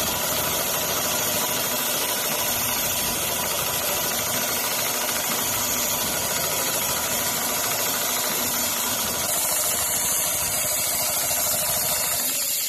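Richpeace CNC sewing machine running steadily as it stitches, a fast continuous mechanical noise of needle strokes.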